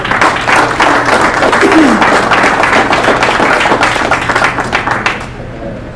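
Audience applauding: many hands clapping densely, dying away about five seconds in.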